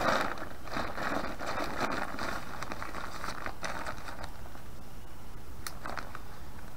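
Fabric of a LiteAF Curve 46 backpack and the teal bag inside it rustling and crinkling as the pack is closed by hand, with a few sharp clicks near the end.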